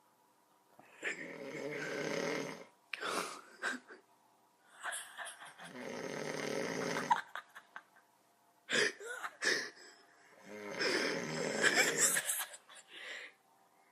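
A person snoring heavily in sleep: three long snores about four to five seconds apart, each followed by a shorter, choppy run of breath sounds.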